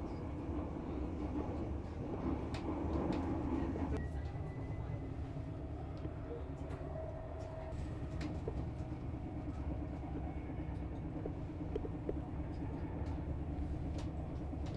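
Train running on the rails with a steady low rumble and scattered sharp clicks, with a brief faint whine about four seconds in.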